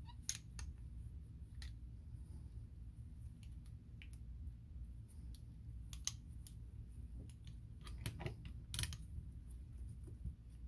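Scattered light clicks and taps of a Penn 113 reel's metal side plate and bale lever parts and a screwdriver being handled and fitted, the loudest cluster about two seconds before the end, over a steady low hum.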